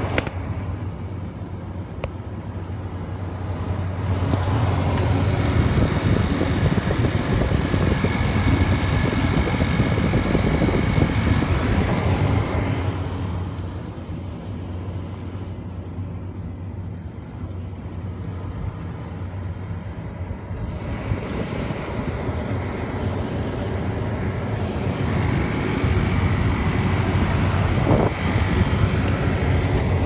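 Compact Carrier air-conditioner condenser running in cooling mode: a steady low compressor hum under the rush of its fan, heard through an open window. The level swells and fades a few times.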